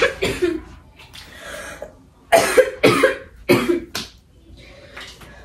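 Someone coughing in a fit: two harsh coughs at the start, then a quick run of four or five more about two seconds in.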